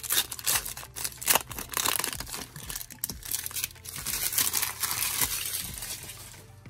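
Foil wrapper of a 2022 Panini Diamond Kings card pack being torn open and crinkled by hand, a run of crackling and tearing that fades out about six seconds in.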